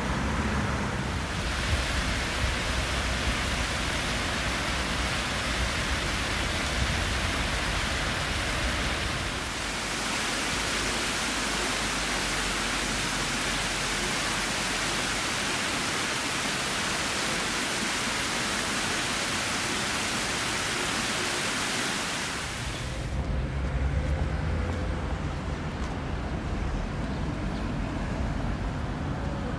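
Fountain jets splashing into a stone basin, a steady rush of water. About 23 seconds in it gives way to the low rumble of a tram rolling through a curve.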